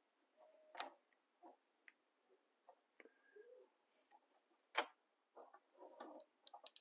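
Faint, scattered clicks and light taps from handling the small plastic parts of an inline lamp cord switch, with a quick cluster of clicks near the end.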